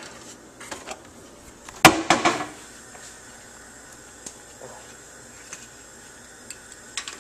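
Gas stove burner being lit: one sharp click about two seconds in, then a faint steady hiss from the burner with a few light ticks.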